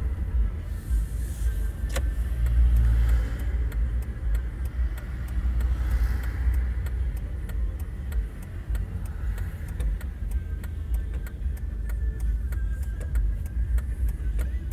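Low engine and road rumble of a car moving slowly in traffic, heard from inside the cabin. A sharp click comes about two seconds in, then a steady run of light ticks, about three a second, over most of the rest.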